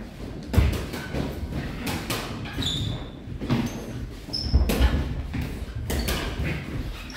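Boxing sparring: gloved punches landing as irregular sharp thuds and slaps, with a few short high squeaks of shoes on the ring canvas.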